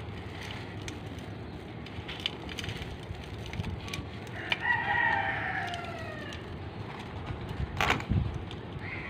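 A rooster crows once near the middle, one call of about a second and a half that falls in pitch. Under it, scattered crunching clicks and rustle from hands crumbling granulated charcoal in a bowl.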